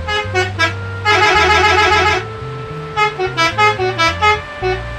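Upbeat background music: a bright, horn-like lead melody of short notes over a bass line, with a fast trilling run about a second in.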